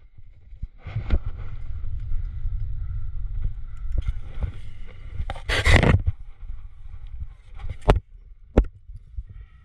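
Close-up crack-climbing noise against a body-mounted camera: a steady low rumble of handling on the microphone, hands and clothing scraping on sandstone, with one loud scrape about six seconds in. Sharp clicks of climbing hardware, carabiners and cams, come twice near the end.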